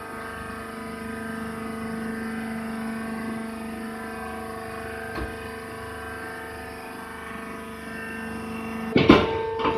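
Hydraulic wood shaving baler running with a steady droning hum from its motor and pump. A short knock comes about five seconds in, and a loud metallic clank near the end.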